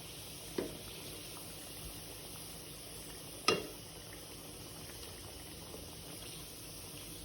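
Hot cooking oil sizzling steadily as tapioca-coated nian gao pieces are deep-fried a second time at high heat. Two sharp clicks stand out, one about half a second in and a louder one about three and a half seconds in.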